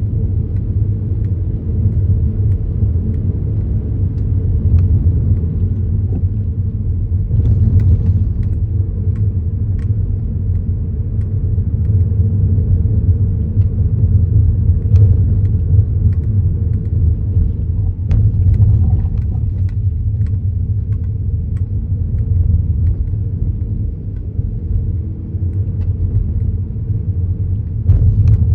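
Kia Niro driving, with a steady low road rumble and a few faint knocks.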